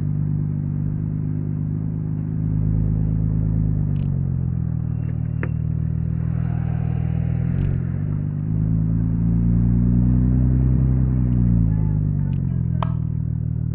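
1998 Audi S4 B5's 2.7-litre twin-turbo V6 running under way, its pitch falling, then rising again after a brief break near the middle and easing off near the end. A few light clicks are heard.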